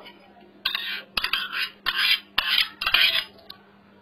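A spoon scraping and clinking against a bowl in several quick strokes, scooping plain yogurt (curd) out of it.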